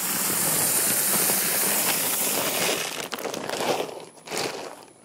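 Shelled deer corn pouring from a bag into an empty 5-gallon plastic bucket, a steady rushing rattle of kernels. It tapers off about three seconds in, leaving a few scattered rattles and crinkles of the bag as it is lifted away.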